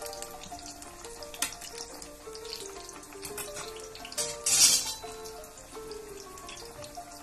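Vegetable broth with angled luffa and string beans simmering in a pot, bubbling and crackling with many small pops, under background music with a simple melody. A brief, louder rush of hissy noise comes about four seconds in.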